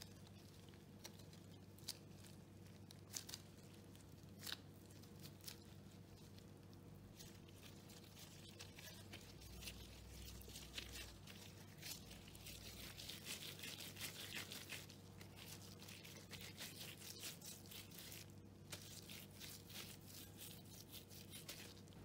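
Faint crinkling and rubbing of disposable plastic gloves as they handle and roll soft rice-cake dough, with a few sharp clicks early on and the crinkling busiest around the middle. A low steady hum lies underneath.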